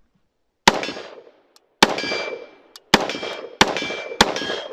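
Five unsuppressed semi-automatic shots from an AR-15 carbine with a 14.5-inch barrel and mid-length gas system. The shots come about a second apart at first and quicken toward the end, each followed by a ringing decay. The rifle's adjustable gas block is fully open, and it cycles as a correctly gassed rifle.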